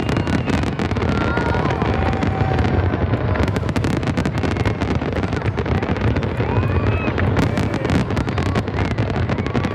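Fireworks going off without a break: a dense, steady crackling over a low rumble of bursts.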